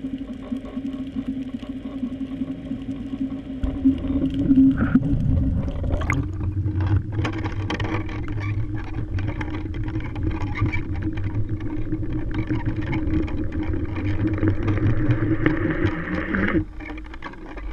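Sound picked up inside a GoPro's waterproof housing as it is hauled up on a line: first a muffled, steady low hum underwater, then about six seconds in a rising rush as it nears and breaks the surface, after which a louder rumble and hiss of water and wind run on until they drop off suddenly near the end.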